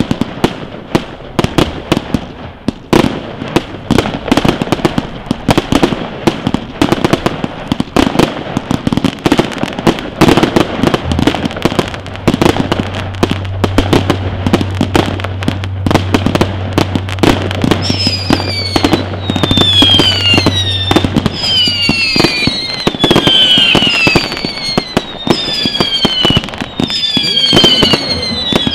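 Consumer fireworks display going off in rapid succession: dense bangs, pops and crackling bursts. From about two-thirds of the way in, high whistles that fall in pitch repeat about every second and a half over the bangs.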